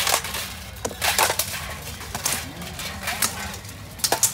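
Swords striking plate armour and shields in an armoured sword-and-shield duel: a string of sharp blows, a few about a second in, one near the middle and a quick run of hits near the end.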